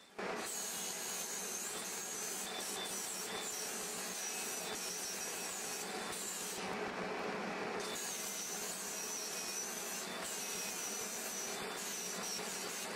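Cordless DeWalt angle grinder with an abrasive disc grinding the edge of a steel plate: a steady grinding whine that dips in pitch now and then.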